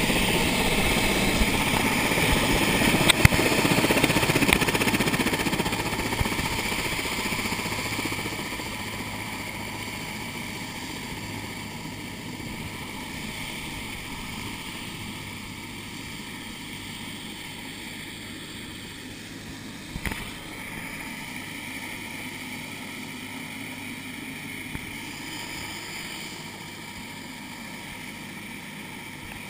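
Turbine helicopter running on the ground with its rotors turning: a steady turbine whine over rotor and engine noise, fading over the first ten seconds or so and then holding low and even. A brief knock comes about twenty seconds in.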